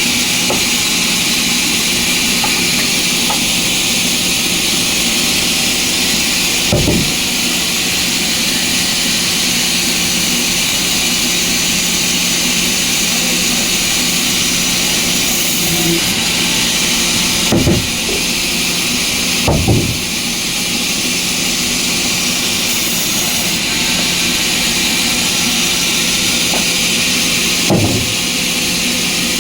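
Sawmill machinery running steadily, a constant hissing whir over a low hum, with a few short knocks of wood.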